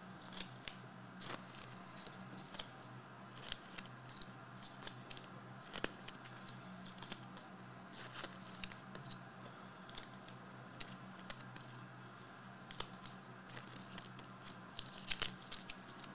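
Faint scattered clicks, taps and crinkles of trading cards and shrink-wrapped card boxes being handled on a table, over a steady low hum.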